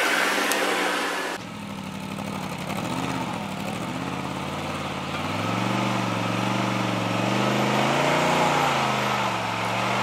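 A loud rushing noise that cuts off abruptly about a second and a half in, then an off-road vehicle's engine running at low revs, its pitch rising and easing back a couple of times.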